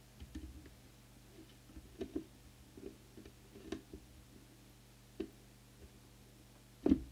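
Scattered light clicks and taps from a hand handling a CB radio's open circuit board while its transformer coils are tuned. A sharper knock comes near the end, over a faint steady low hum.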